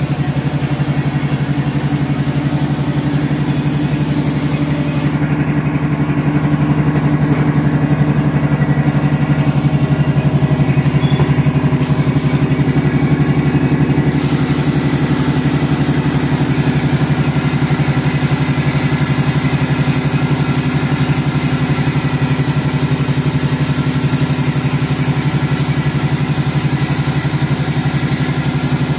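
Pneumatic garlic peeling machine running with its air blower: a steady, loud machine hum with a strong low tone and a rush of air over it.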